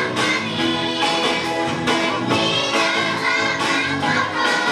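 A group of children singing a song over backing music with a steady beat.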